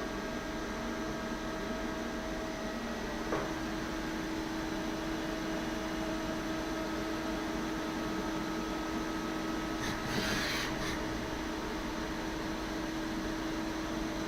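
Hitachi Seiki TS15 CNC turning lathe running, with a steady mechanical hum and a few steady tones. A click about three seconds in is followed by a stronger hum, and a short hiss comes about ten seconds in.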